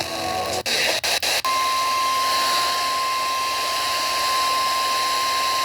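Emergency Alert System warning tone relayed over the radio: one steady, unbroken tone a little above 1 kHz, the single-frequency 1050 Hz NOAA Weather Radio alert tone. It starts about a second and a half in, after a moment of hissy audio broken by several brief dropouts.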